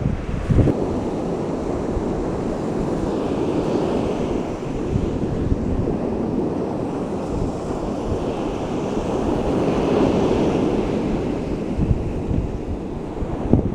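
Surf washing steadily onto a beach, with wind gusting on the microphone.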